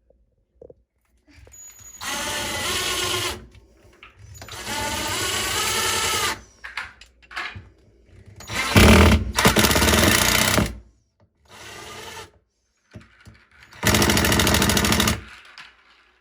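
Electric drill running in four bursts of one to two seconds each, its pitch climbing as the motor speeds up, drilling into a wall.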